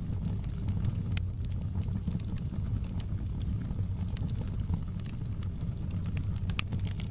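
Fireplace fire crackling: a steady low rumble of flame with scattered sharp pops and snaps, one of the louder pops about a second in.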